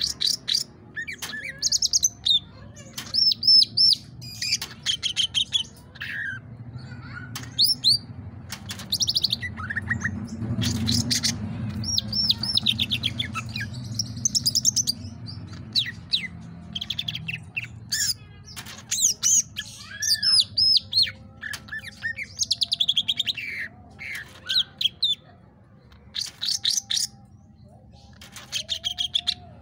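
Cucak ijo (green leafbird) singing a varied, busy song of high chirps, whistles, sweeping notes and rapid trills in phrases with short gaps. A low rumble lies underneath, strongest about a third of the way in.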